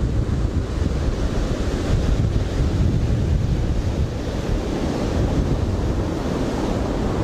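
Ocean surf breaking on a sandy beach, mixed with wind buffeting the microphone: a steady wash of noise, heaviest in the low end, with no distinct knocks.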